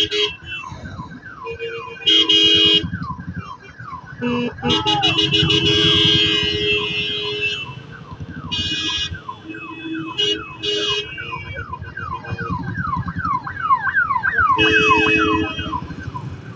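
Ambulance siren wailing in a fast, repeating sweep, growing louder near the end. Vehicle horns honk over it several times, the longest blast about five to seven seconds in.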